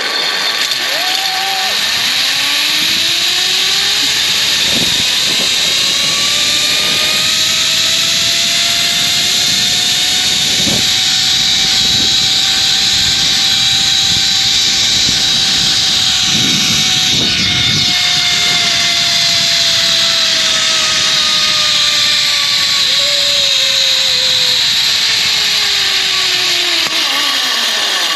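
Zip line trolley pulleys running along the cable with a loud, steady rushing hiss and a whine that rises in pitch as the rider picks up speed, holds, then falls away near the end as the trolley slows.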